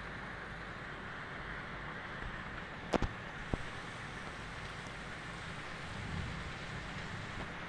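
Steady rain falling, an even hiss. About three seconds in come three sharp close clicks of drops striking a hard surface near the microphone.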